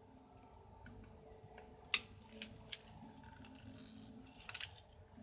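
Faint clicks and taps of small metal parts being handled during work on a motorcycle clutch basket, with one sharper click about two seconds in and a short clatter of clicks near the end.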